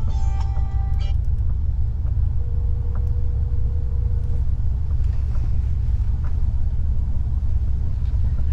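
Steady low rumble inside a truck's cabin, with a short run of stepped electronic tones that stops about a second in and a single steady beep-like tone lasting about two seconds near the middle.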